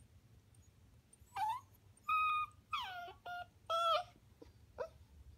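A dog whining: about five short, high whines in quick succession, several falling in pitch, followed by two faint short squeaks.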